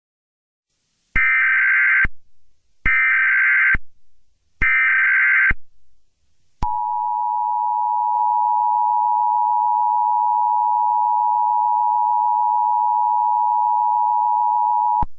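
Emergency Alert System broadcast tones: three short bursts of SAME digital header data, each under a second long and about a second apart, then the steady two-tone EAS attention signal held for about eight seconds. Together they announce that an emergency message follows.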